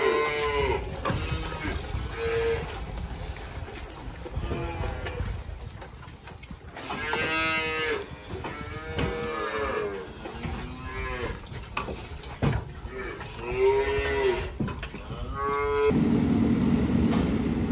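Cattle mooing over and over, about eight drawn-out calls that rise and fall in pitch and sometimes overlap. Near the end the mooing stops and a steady low hum begins.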